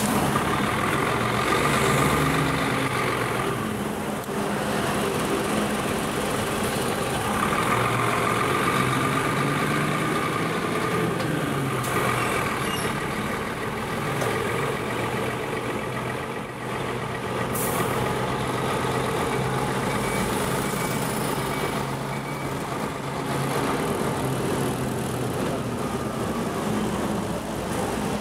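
Road traffic: motor vehicle engines running close by, a steady engine hum that rises and falls a little.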